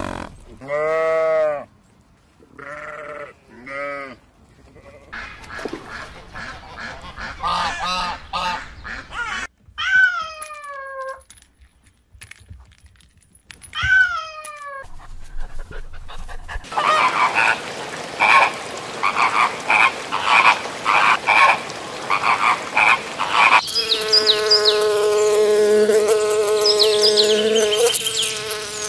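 A run of short calls from different animals. A cat meows twice, about ten and fourteen seconds in, each call falling in pitch. From about twenty-four seconds in comes the steady buzz of a bumblebee.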